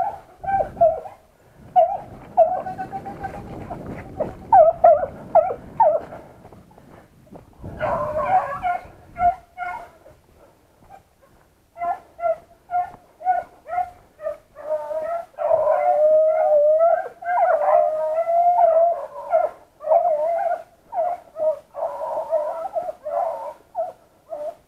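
A pack of beagles baying while hunting rabbits, a run of short repeated yelps and longer drawn-out howls that grow thicker in the second half. Grass and brush rustle in the first half.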